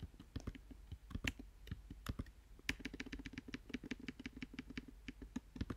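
Computer keyboard keys being tapped. There are a few scattered keystrokes at first, then a quick, even run of about five taps a second from about halfway through.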